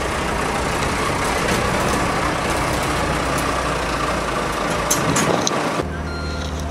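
A vehicle engine runs steadily under a dense rushing noise. About six seconds in, the sound cuts abruptly to a steady low hum with short, repeated high beeps.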